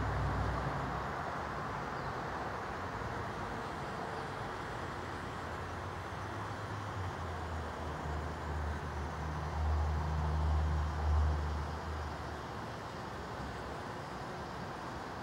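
Street traffic noise, with a vehicle's low engine rumble that swells from about eight seconds in and fades by about twelve seconds.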